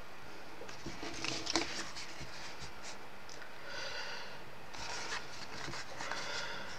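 Pieces of 240 gsm card rustling and scraping as they are handled, folded and slid on a wooden tabletop, in several short spells with a small tap or two.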